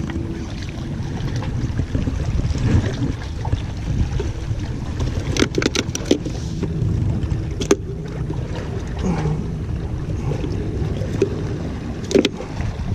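Steady low rumble of wind and sea waves, with a quick run of sharp clicks around the middle, another click a little later, and a knock near the end.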